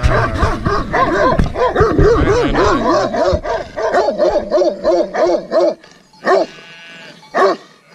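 White livestock guardian dog barking repeatedly in a fast run of barks, a warning at people approaching the sheep it guards. Near the end the barking thins to two single barks.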